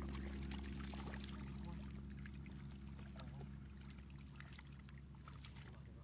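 Small splashes and drips of muddy water as stranded fish flop and hands move in a shallow puddle, over a low, steady hum that slowly fades away.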